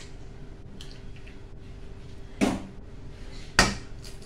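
An egg being cracked against the rim of a stainless steel pot: two sharp knocks about a second apart, the second near the end.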